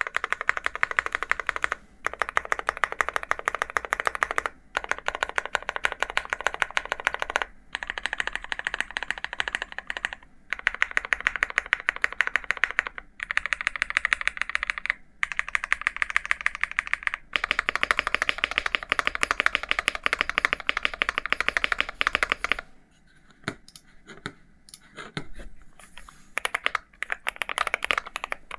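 Fast typing on a mechanical keyboard with linear Gateron G Pro 3.0 Yellow switches in an aluminium-cased Akko MonsGeek M1: rapid, even clacks in runs of a few seconds broken by short pauses. For a few seconds near the end the keystrokes come slower and softer before fast typing resumes.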